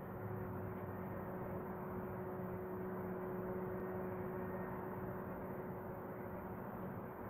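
Steady background noise with a constant low hum, unchanging throughout.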